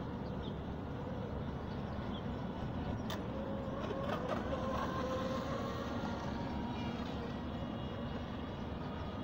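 Electric RC speedboats running on the water, one with a brushless 540 motor and one with a brushed 21T 540 motor. A faint motor whine rises and falls around the middle over a steady rushing wind-and-water noise.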